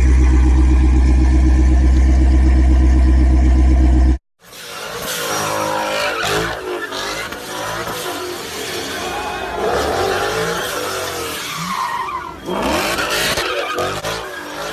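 Ford Mustang engine held at a steady, loud drone for about four seconds, then cut off abruptly. After a brief gap, tyres squeal and the engine revs up and down during burnouts and donuts.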